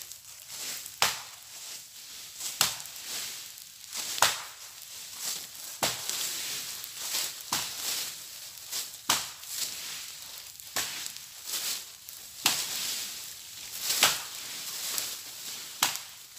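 Repeated chops of a hand tool into dry leaves and undergrowth while clearing bush, about one stroke every second and a half, with dry leaves rustling and scraping between strokes.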